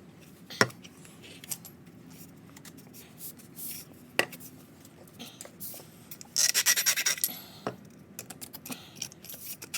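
Small metal parts clinking and scraping as washers are fitted onto a new shock absorber, with a few sharp clicks and a short burst of rapid clicking about six and a half seconds in.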